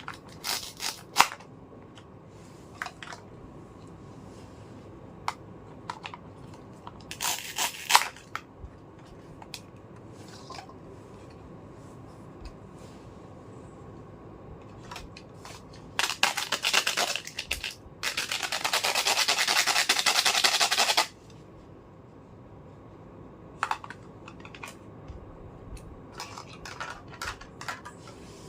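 Small plastic toy pieces being handled: scattered clicks and taps. About sixteen seconds in comes a few seconds of quick crackling, then a steady rasping rustle that cuts off suddenly.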